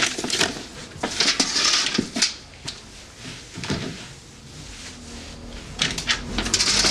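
Wet floorcloth being rubbed and scrubbed across a wooden floor, in swishing bouts about a second in and again near the end, with scattered light knocks.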